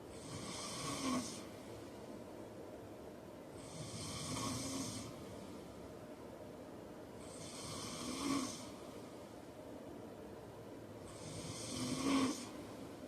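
A man snoring in his sleep: four snores about four seconds apart, each a breathy hiss that swells to a short, louder rattle at its end.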